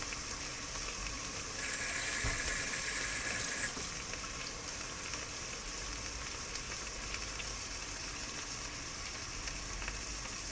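A beef rump roast sizzling as it sears in hot olive oil in an electric pressure cooker's inner pot on its browning setting: a steady frying hiss, louder for about two seconds near the start.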